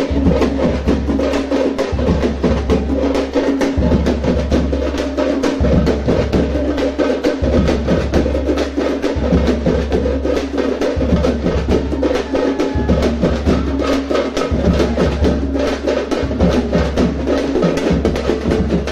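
Tamate frame drums beaten fast with sticks in a dense, driving rhythm, over a deep low pulse that repeats about every two seconds.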